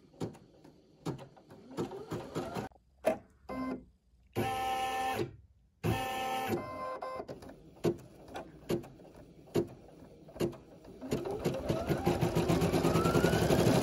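Brother Innovis NV880E embroidery machine stitching a design. It starts with scattered needle ticks and two short, steady motor whines, then from about eleven seconds in settles into a fast, even run of stitches with a rising whine as it speeds up.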